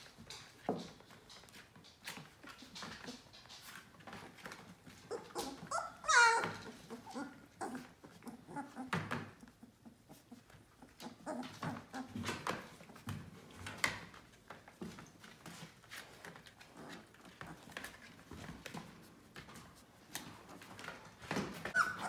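Yellow Labrador puppies, about 18 days old, squeaking and whimpering as they jostle, with one loud high squeal that rises and falls about six seconds in and another loud cry at the very end. Soft scratching and rustling of small paws on a blanket and plastic pool runs underneath.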